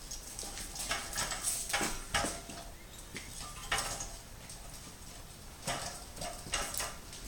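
Irregular knocks and clacks, a dozen or so sharp hits at uneven spacing, some in quick clusters.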